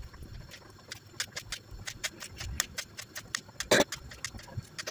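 Knife chopping parsley on a cutting board: a run of sharp chops, about three or four a second, with one heavier knock near the end.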